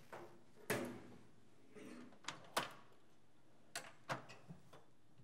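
A handful of sharp clicks and knocks as objects are handled and moved around at a workbench, about six in all, the first with a short ringing tail.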